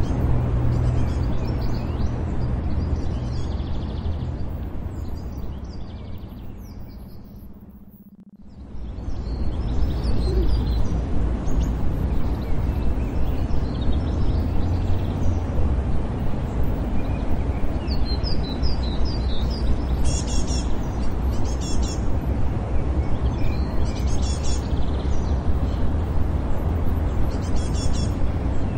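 City park ambience: an even outdoor noise bed with birds chirping, more often in the second half, over a steady low pulsing isochronic tone. The whole bed fades down to a dip about eight seconds in and quickly comes back up.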